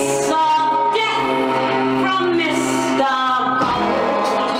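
Recorded pop song with a sung vocal line, playing loud and steady for a stage lip-sync performance.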